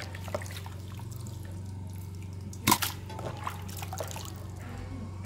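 Water dripping and splashing as raw chicken pieces are rinsed by hand in a plastic basin and dropped into a stainless steel pressure cooker pot, with small wet clicks and one sharp knock about halfway through.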